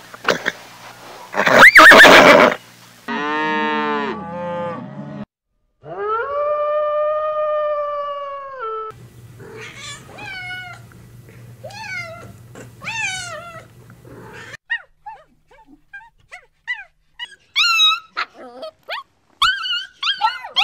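A string of different animal calls: a loud, noisy burst and a wavering whinny from horses in the first few seconds, then a long held call. After that comes a kitten mewing over and over in high, falling mews, and near the end a small dog gives short high yips.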